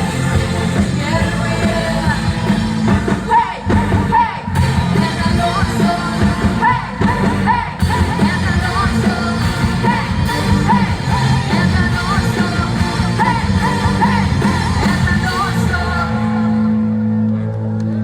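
A vocal-instrumental pop-rock band playing with a singer; about two seconds before the end the singing stops and the band holds a low sustained chord.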